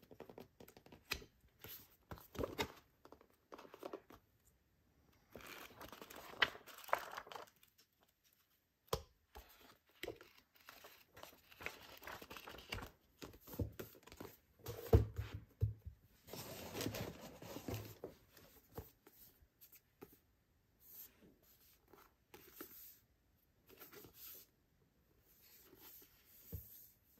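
Hands riffling and turning the paper pages of paperback manga volumes and handling the books, in short irregular rustling bursts, with one louder thump about halfway through.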